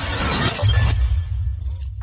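Edited logo-intro sound effects: a hissing, shattering swish, then a deep bass rumble from about half a second in that dies away just before the end.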